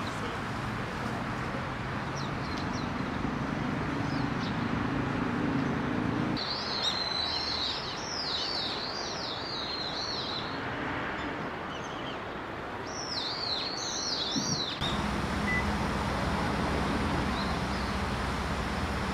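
Warbling white-eye (mejiro) singing a fast, high, wavering warble in two bouts, a longer one and then a shorter one, over a steady background hum.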